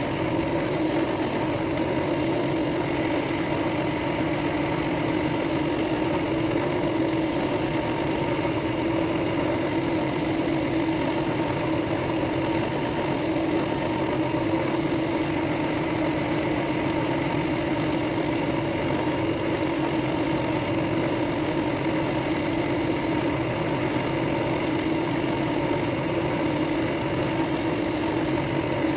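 Drill press running steadily with a small sanding drum in its chuck, sanding out the inside of a dark-wood and brass ring blank; an even, unbroken motor hum.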